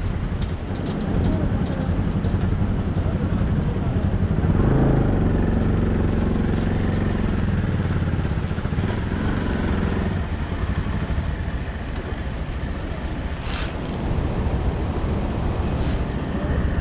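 Motor vehicle engine running under way over a rough road, its pitch and level rising and falling about a third of the way through, with two sharp clicks near the end.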